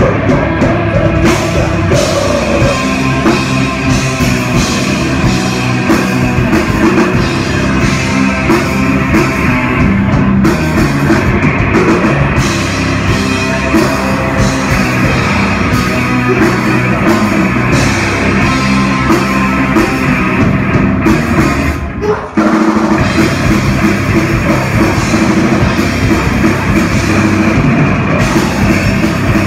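Heavy metal band playing live: distorted electric guitars, bass and drum kit, with the vocalist singing into the microphone. The band cuts out for a moment about three-quarters of the way through, then comes straight back in.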